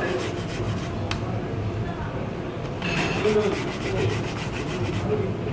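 Raw potato being grated by hand on a plastic hand grater: a continuous scraping of repeated back-and-forth strokes.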